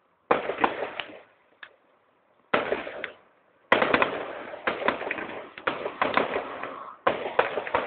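Fireworks display going off: a bang about a third of a second in, another about two and a half seconds in, then from nearly four seconds a dense run of bangs and crackling, with a fresh burst near the end.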